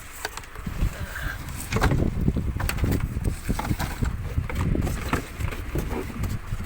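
Wind buffeting the microphone in a low, uneven rumble, with scattered knocks and rustles as a box and its contents are handled.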